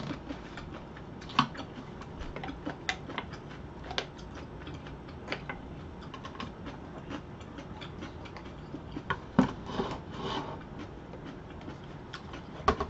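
Scattered light clicks and clinks of chopsticks and a spoon against ceramic bowls, with a louder clatter near the end as the bowls are stacked.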